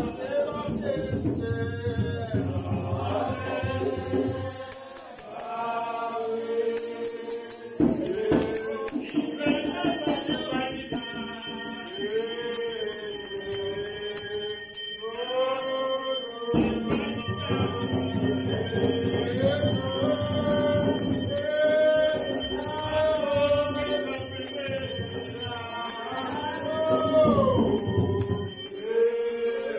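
Church congregation singing a hymn in long held notes, with shaken hand percussion keeping time.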